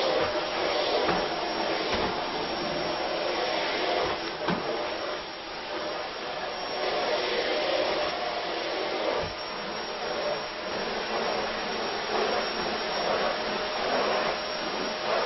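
A steady rushing noise, with a few faint clicks.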